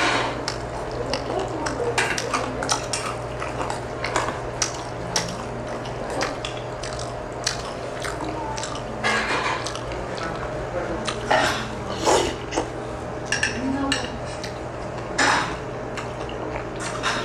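Eating sounds: cutlery tapping and scraping against dishes in many short clicks, with a few longer noisier sounds mixed in, over a steady low hum.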